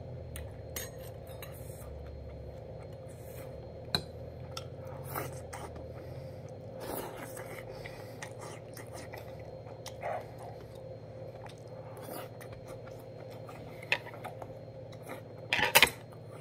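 Eating: chewing and spoonfuls taken from an earthenware stew pot, with scattered small clicks and scrapes of a metal spoon and chopsticks against the dishes, two sharp ticks, and a brief louder noise near the end. A steady low hum runs underneath.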